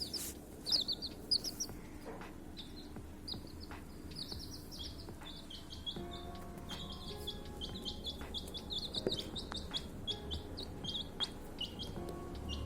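Baby chicks peeping: many short, high peeps, several a second, overlapping from more than one chick, growing busier about halfway through.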